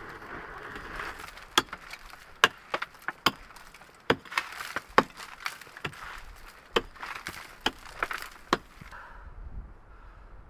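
A run of sharp, irregular cracks and snaps, about a dozen over six or seven seconds, stopping shortly before the end.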